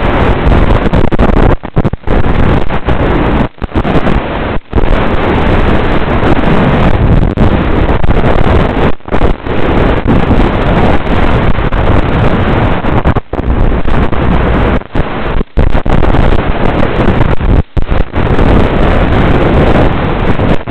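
Loud, steady rush of air buffeting the onboard microphone of a fast, low-flying FPV flying wing. It cuts out briefly several times.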